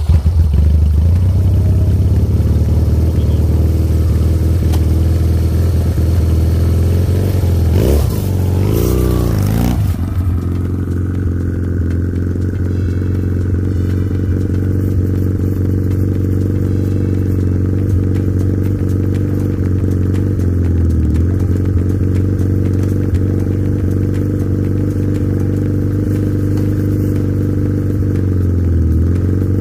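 Chinese 250cc ATV's single-cylinder engine running. It is revved up and down a few times about eight to ten seconds in, then runs steadily, with two brief dips in engine speed later on.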